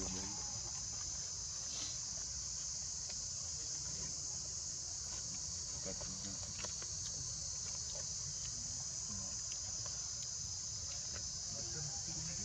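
Steady high-pitched shrilling of a forest insect chorus, with a low rumble underneath and a few faint ticks.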